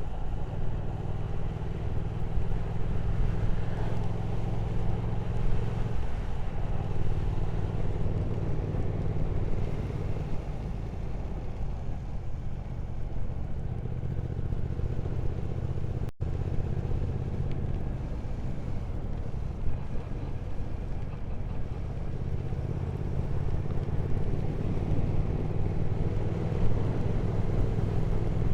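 Motorcycle engine running under way, with wind and road noise over it. The engine note holds steady and changes a few times along the way.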